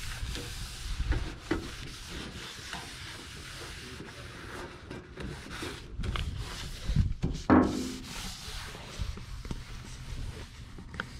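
Paper towel rubbing over the 1966 Mustang's interior rear panel as it is wiped dry, with a short vocal sound about seven and a half seconds in.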